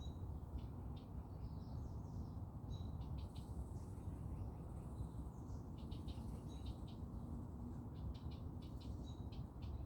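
Garden birds chirping in short, repeated high notes, over a steady low background rumble.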